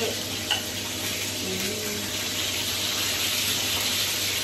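Steady kitchen hiss made of fish frying in hot oil with spattering, a tap running at the sink, and a range hood fan running over the stove, under a low steady hum.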